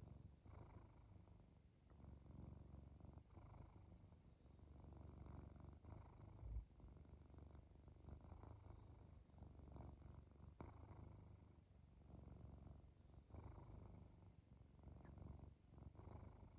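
Domestic cat purring close up: a low rumble that swells and fades with each breath, about every two and a half seconds. A soft low thump about six and a half seconds in.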